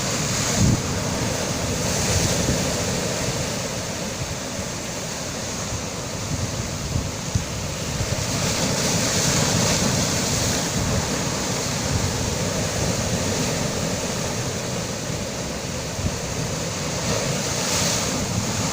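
Sea waves surging on a shore: a steady rushing wash that swells and eases over several seconds at a time.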